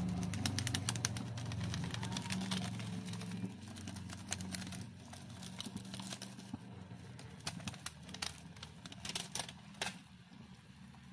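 Pot of milkfish simmering in vinegar broth: irregular popping and crackling clicks over a low hum that fades about four seconds in, with a few louder pops later.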